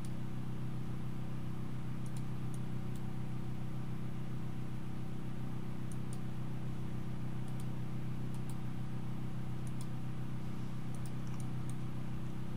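A steady low hum throughout, with a few faint computer mouse clicks scattered across it.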